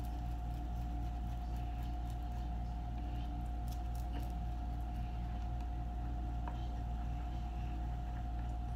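A plastic spoon stirring melted soap base in a plastic bowl, making a few faint clicks and scrapes, over a steady low hum and a thin steady tone.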